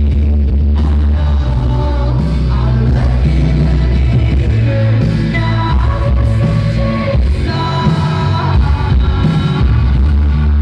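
Live pop-rock song played through a concert PA, with a singing voice over a heavy bass, heard from the audience.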